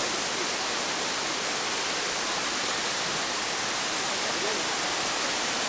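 Steady rushing and splashing of spring water pouring from a rock face in several small falls.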